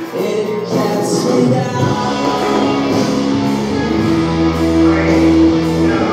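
Music with singing, a steady run of held notes.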